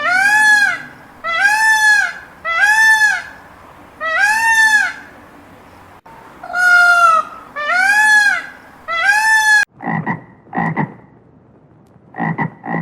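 A run of loud animal calls, each a pitched call under a second long that rises and falls, repeated about once a second. After a sudden cut near the end come four short, lower calls in two pairs.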